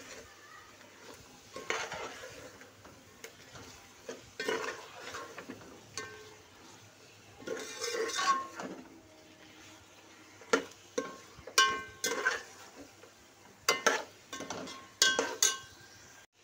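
A metal spoon stirring and scraping spiced meat around a large aluminium pot as it fries, with the spoon clinking sharply against the pot several times in the second half.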